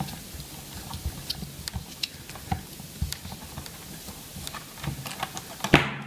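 Screwdriver loosening the screw that holds a Roomba's side brush: a run of small irregular clicks and ticks, with a louder click near the end.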